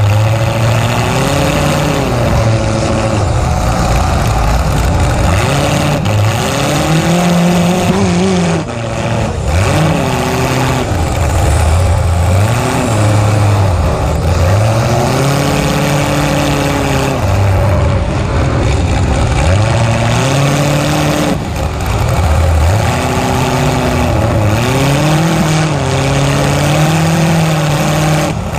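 Demolition derby car's engine with open header pipes through the hood, revving up and dropping back again and again as it is driven hard.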